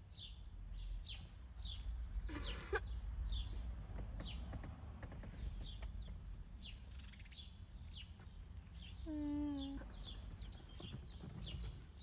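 House sparrows chirping at a feeder: short, repeated chirps about twice a second, with two brief lower-pitched calls, the louder one about nine seconds in, over a steady low rumble.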